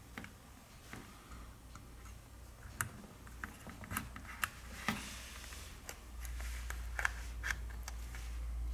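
Scattered light clicks and taps of small tools and plastic phone parts being handled on a repair bench, irregular and a second or so apart. A low steady hum grows louder about six seconds in.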